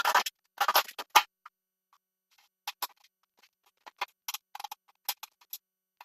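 Handling noise as a bathroom exhaust fan is fitted into its ceiling housing: scraping and rustling for about the first second, then scattered short clicks and scrapes.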